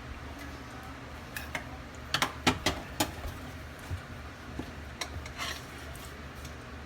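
Sharp knocks and clicks of kitchen utensils, most likely a rolling pin tapping against its board as paratha dough is worked, with a cluster of louder knocks about two to three seconds in. A low steady hum runs underneath.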